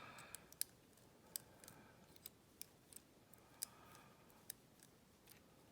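Faint, irregular metallic clicks of a lever-lock pick lifting the levers of a small all-brass four-lever lever lock while it is held under tension, about a dozen clicks spread unevenly.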